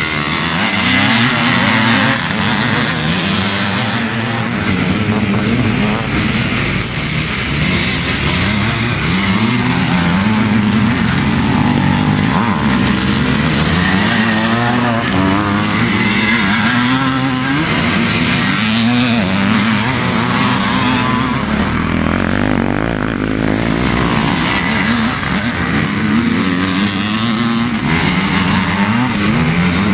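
Vintage two-stroke motocross motorcycles racing through a corner one after another, their engines revving up and down in a continual run of rising and falling engine notes as each bike accelerates away.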